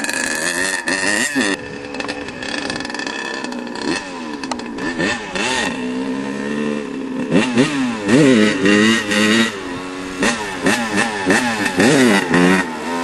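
Dirt bike engines revving, more than one at a time, their pitch climbing and dropping over and over, with quick sharp throttle blips in the second half.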